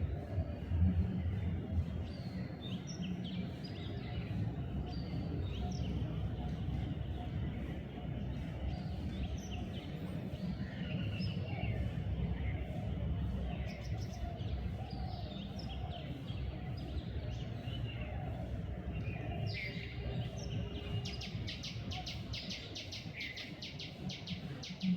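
Bulbuls calling with many short chirps and quick whistled notes over a steady low background rumble. Near the end a rapid run of repeated notes comes in for a few seconds.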